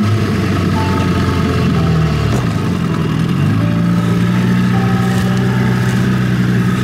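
Motorboat engine running, its note dipping briefly and then settling into a steady higher pitch about halfway through.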